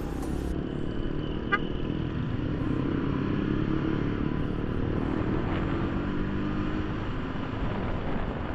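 Bajaj Pulsar 200NS single-cylinder engine running while the bike is ridden, with road noise, getting a little louder a few seconds in and then easing.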